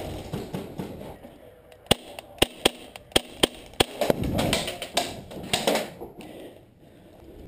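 Airsoft gun firing six quick single shots, sharp snapping clicks spaced unevenly a third to half a second apart, followed by a couple of seconds of rustling noise.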